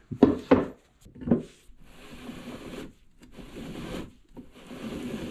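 Hand-cut MDF gears turned by hand, their wooden teeth rubbing against each other as they mesh. A few short knocks come first, then a steady rub with brief breaks.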